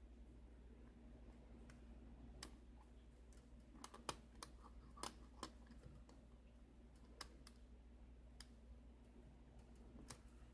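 Faint, irregular metallic clicks of a lock pick and tension wrench working the pins of a 5-pin Kwikset KIK lock cylinder, a few clicks a second at most, over a low steady hum.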